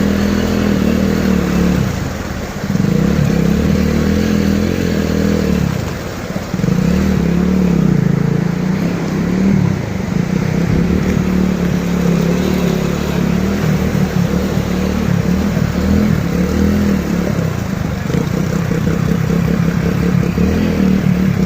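An engine running steadily at a low pitch, easing off briefly about two and a half seconds in and again about six seconds in.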